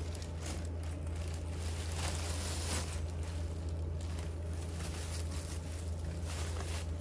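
Clear plastic packaging and tissue paper rustling and crinkling as a handbag is unwrapped, busiest about two to three seconds in, over a steady low hum.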